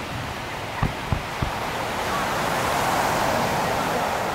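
Fireworks display: three sharp launch thumps about a second in, followed by a hiss that swells and holds as a large white shell display bursts and showers overhead.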